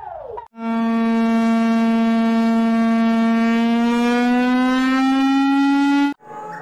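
Emergency alarm tone: a long, loud, steady low tone rich in overtones that rises slightly in pitch over its last couple of seconds and cuts off suddenly. Before it begins, the tail of a different alarm made of quick falling whoops, about two a second.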